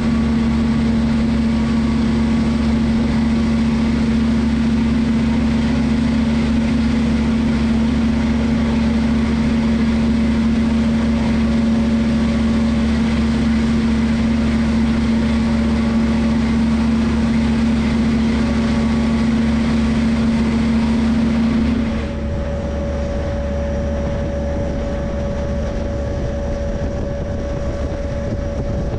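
Diesel freight locomotive running with a steady engine hum and a strong low steady tone. About 22 seconds in the engine note changes: the low tone drops out, a higher tone takes over and the sound gets a little quieter.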